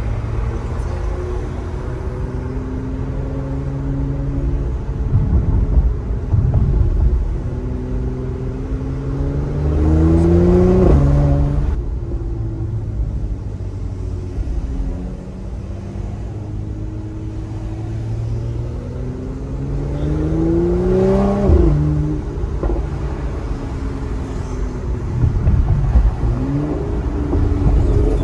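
Mercedes-AMG C 43 engine and exhaust heard from inside the cabin while driving: a steady low drone that twice climbs in pitch under acceleration and each time drops off suddenly.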